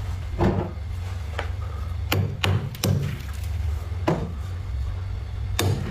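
Thick, crunchy freezer frost being scraped and chipped off, breaking away in about seven sharp, crisp cracks at uneven intervals. A steady low hum runs underneath.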